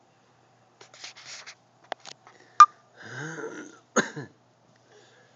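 A few sharp clicks and knocks, the loudest about two and a half seconds in, then a short voice sound and a sudden throaty burst, like a cough, about four seconds in.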